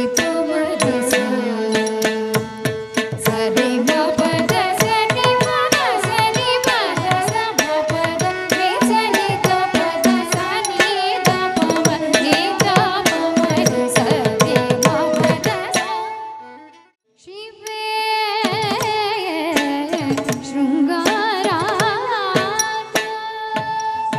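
Carnatic music accompanying a Bharatanatyam dance: a sung melody with instruments over fast, dense drum strokes. The music breaks off suddenly about 17 seconds in and starts again a moment later.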